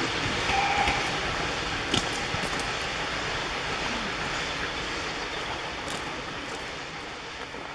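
A train of passenger coaches rolling away along the track, the wheel-on-rail rumble fading steadily as it leaves, with a few sharp clicks.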